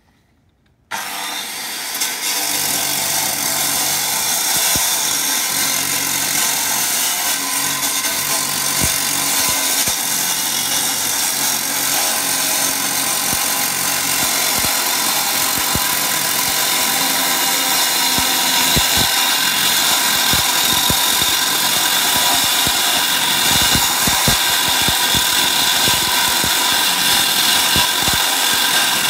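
Disc cut-off saw cutting into concrete, running steadily under load with a high-pitched whine and grinding. It comes in suddenly about a second in.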